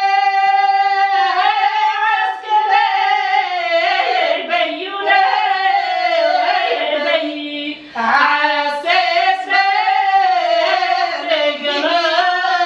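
A woman singing a Tunisian folk song solo, holding long notes and bending them with ornaments, with a short breath about eight seconds in.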